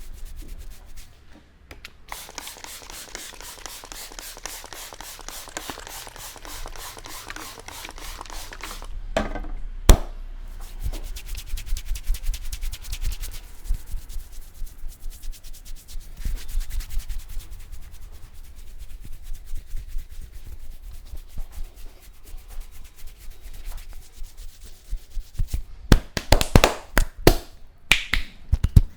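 Hands rubbing briskly over a scalp and through hair in a head massage, first as fast, dense scratchy friction and then as slower uneven strokes. A single sharp click comes about ten seconds in, and a quick flurry of sharp hits comes near the end.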